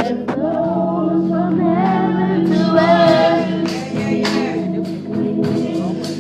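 Youth gospel praise team singing together over instrumental accompaniment, holding out a long sung line of a slow worship song.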